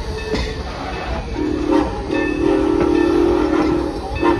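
Steam locomotive whistle blowing, heard from the coaches behind: a short blast about a second and a half in, then a long one, then another short one near the end, as a road crossing is passed. Under it the coaches rumble and click over the rails.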